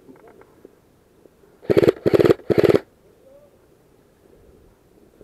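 Airsoft rifle firing three short full-auto bursts in quick succession, about two seconds in, each a fast rattle of shots.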